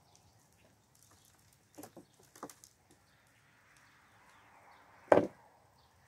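Gloved hands pulling apart a potato plant's root ball and potting soil over a plastic tub: a few short knocks and clicks about two seconds in, then one loud thump just after five seconds.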